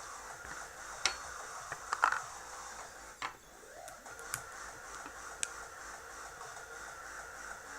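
Scattered small clicks and taps of tools and small metal parts while the antenna bracket is being fitted back onto an opened iPhone 4S. The sharpest come about 1 and 2 seconds in, over a steady background hiss.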